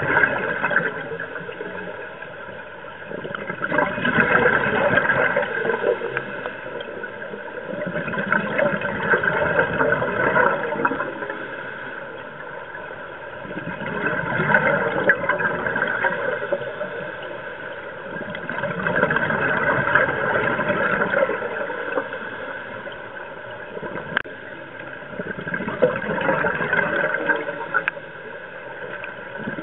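Scuba regulator breathing heard underwater: bubbly exhalations swell and fade about every five seconds.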